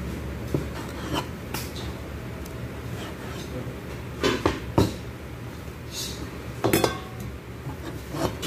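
A kitchen knife knocking and scraping on a plastic cutting board as raw chicken breast is trimmed, in irregular knocks with the loudest about four and a half seconds and about seven seconds in. A steady low hum runs underneath.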